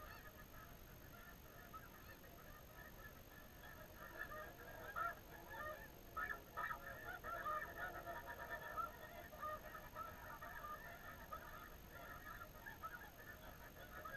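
A chorus of snow geese calling: many overlapping short, high honks from a flock, swelling in the middle and easing off again.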